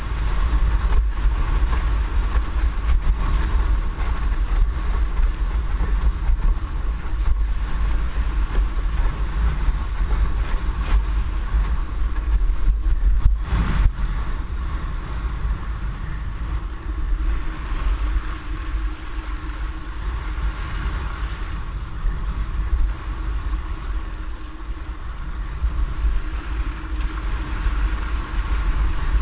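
Wind buffeting the microphone of a boom-mounted action camera on a windsurfer sailing at speed, with water rushing and hissing off the board. A single sharp knock comes about halfway through.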